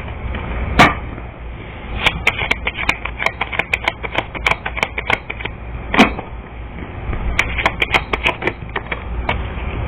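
Tarot cards being shuffled and handled: a run of sharp, irregular clicks and slaps, a few of them louder, over a steady low hum.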